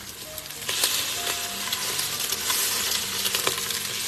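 Eggs and shredded ginger sizzling in the inner pot of an electric pressure cooker, stirred with a spatula that scrapes and clicks against the pot. The sizzle grows louder about a second in.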